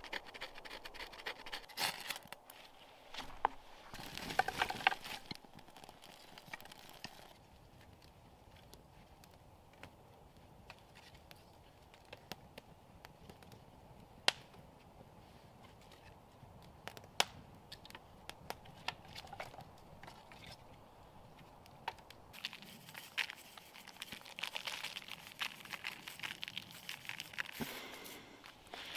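A knife scraping shavings off a split stick onto a strip of bark, then a small campfire crackling with scattered pops, and near the end a plastic bag crinkling as it is handled.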